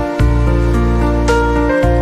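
Calm, slow instrumental background music: held chords over a deep bass note, with a new chord coming in about a fifth of a second in and another near the end.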